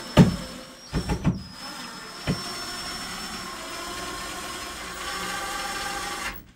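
Cordless drill driving screws through a wall bracket into wall anchors: a few short bursts, then a longer run of about four seconds whose whine climbs slightly in pitch and stops suddenly near the end.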